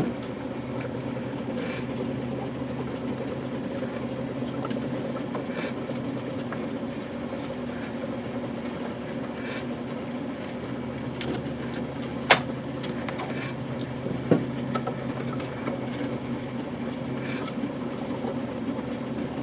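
O-scale model train locomotive running: a steady motor hum, with two sharp clicks, one about twelve seconds in and another two seconds later.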